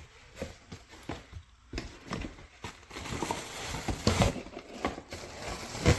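Box and packing being handled during unboxing: scattered light taps and knocks, then steadier rustling with a few louder knocks from about three seconds in.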